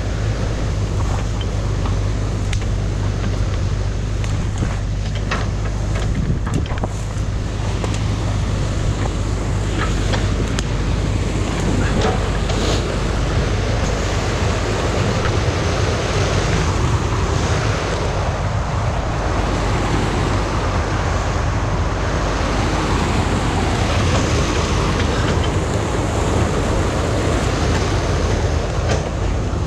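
Stream water pouring over a low concrete weir into the pool below, a loud, steady rush of falling water.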